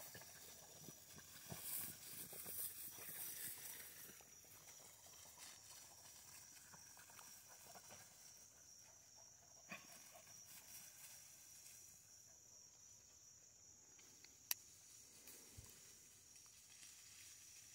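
Near silence: a faint steady high-pitched insect drone, faint rustling in dry grass in the first few seconds, and one sharp click about fourteen seconds in.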